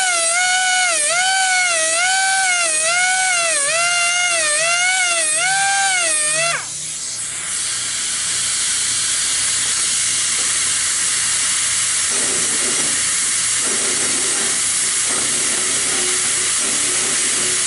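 Small air die grinder with a grinding stone sharpening the teeth of a band sawmill blade: a high whine whose pitch dips about once a second as the stone bears on each tooth, then winds down and stops about six and a half seconds in. A steady hiss of air carries on after the grinder stops.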